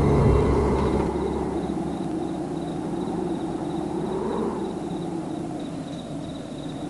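Outdoor night-style ambience: a steady hiss of background noise with slow swells, and faint rhythmic insect chirping high up. Low music notes fade out in the first second or so.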